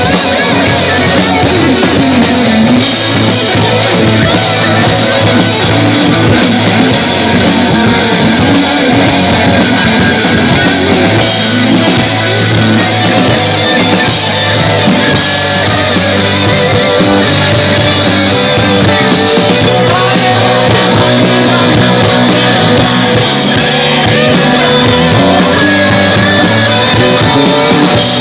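A live rock band playing loudly: electric guitars, bass guitar and drum kit, with no break.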